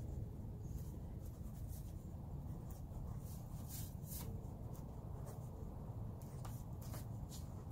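Pink felt-tip highlighter scratching and squeaking in short, irregular strokes on a sheet of brown card, over a steady low background rumble.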